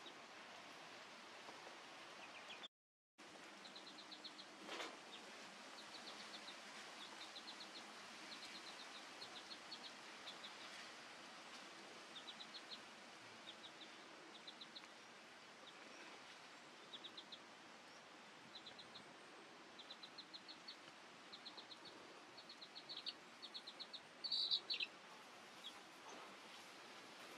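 Faint chirping of small birds in short quick runs of a few high notes each, repeated over a quiet outdoor background. A louder chirp comes near the end.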